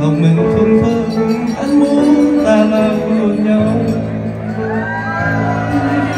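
Music playing in a large hall: a melody of held notes, with a lower note coming in about three and a half seconds in.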